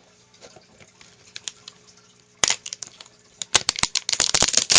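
Packaging crinkling and crackling as a boxed manga set is unwrapped: quiet handling at first, one sharp crackle about halfway, then a dense run of crackles near the end.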